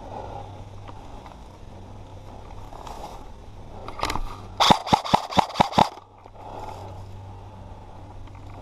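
Airsoft gun firing a quick string of about eight shots, around six a second, about halfway through, over the rustle of a player moving.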